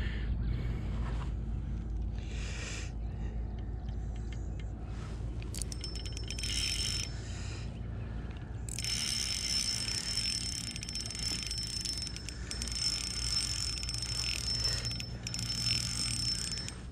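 A fishing reel's drag giving line to a big fish on a light crappie outfit: a short burst of rapid clicking a little past the middle, then a long steady high-pitched buzz as the fish runs, over a steady low rumble.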